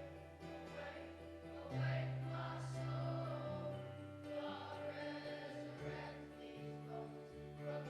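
Voices singing as a group over sustained instrumental accompaniment: church music, with long held low notes changing a few times.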